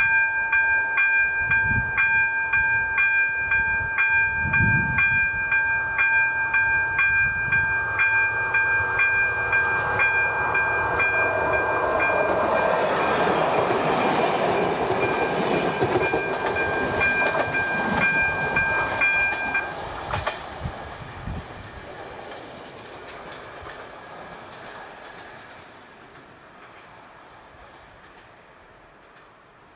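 Level-crossing electronic bell (AŽD ZV-02) ringing a fast, regular ding of about two strokes a second while a passenger train rolls through the crossing. About two-thirds of the way in the bell cuts off, and the train's rumble then fades away.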